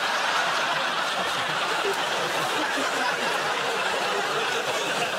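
Studio audience laughing loudly and steadily as a crowd.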